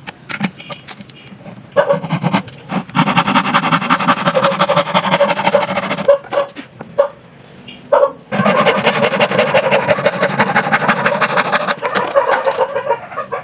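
Electric arc welding: the arc crackles and sputters in two long runs of about four seconds each, with short strikes and pops between them.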